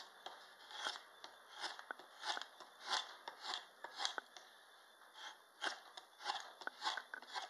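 Draw knife slicing shavings off the sides of a wooden spoon blank: a quick series of short cuts, about one or two a second.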